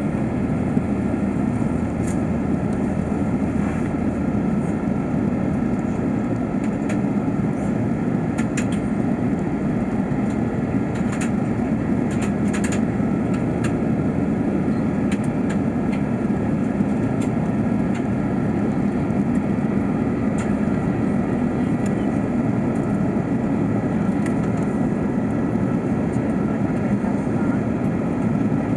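Steady cabin noise of an Airbus A380 in flight: an even rush of airflow and engine drone, with a few faint clicks around the middle.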